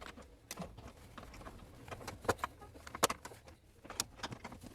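Irregular sharp clicks and knocks of hand tools working on the door check strap bolts inside a car door, with a low steady hum underneath.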